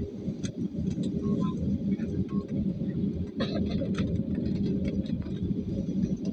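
Cabin noise of an Airbus A320-family airliner taxiing after landing: a steady low rumble from the engines at taxi power and the wheels on the taxiway, with a faint steady hum. Scattered light clicks and rattles sound through it, one more distinct about three and a half seconds in.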